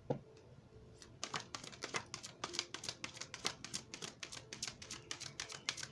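Tarot cards being handled, a rapid run of irregular sharp clicks and flicks that starts about a second in.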